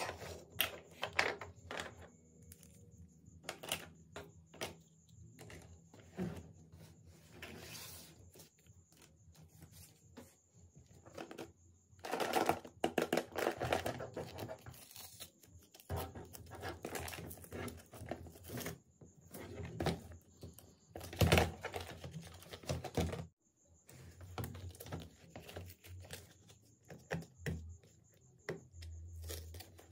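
Small plastic toy pieces clicking and tapping as hands handle them and a plastic case, then a paper sleeve on a plastic box being pulled, torn and crinkled, louder through the middle. Short sharp clicks and rustles, no voice.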